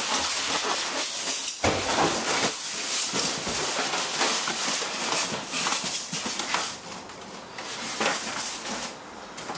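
Packaging rustling and scraping as a boxed airsoft A&K 249 SAW is unpacked, a dense run of crackles with a firmer knock about a second and a half in, dying down near the end.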